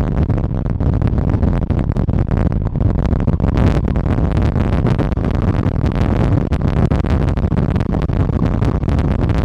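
Strong wind buffeting the microphone: a loud, constant low rumble broken by irregular crackles as the gusts hit.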